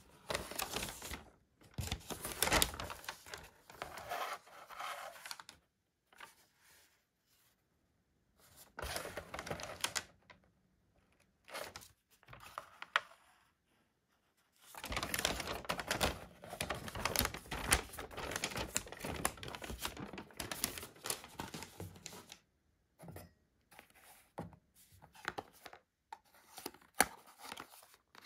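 Folded paper instruction leaflet rustling and crinkling in several bouts as it is handled and unfolded, followed near the end by a run of small sharp clicks and taps.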